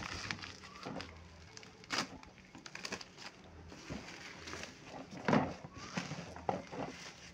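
Scissors snipping through packing tape and bubble wrap crinkling as it is pulled off a cardboard shipping box, in irregular rustling bursts. The loudest burst comes about five seconds in.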